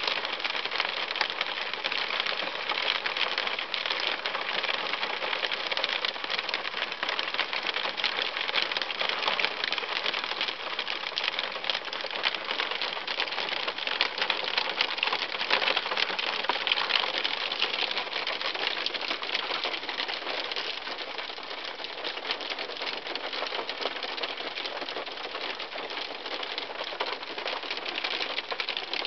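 Hailstones pelting a car's windshield and body, heard from inside the car: a dense, steady clatter of countless small ticks, a little lighter for a while in the second half.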